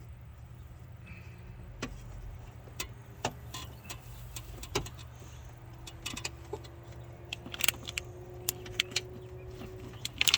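Scattered light metallic clicks and taps of hand tools and bolts against a truck door during window-regulator work, over a steady low hum. The clicks come more often near the end.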